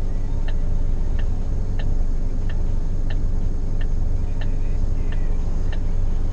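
A vehicle's indicator relay ticks evenly, about one and a half ticks a second, over the steady low hum of the idling engine.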